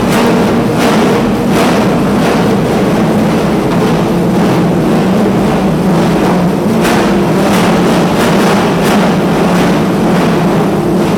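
Ferrari FXX 6.0-litre V12 engines running steadily at a loud, even pitch. Repeated sharp cracks come near the start and again through the second half.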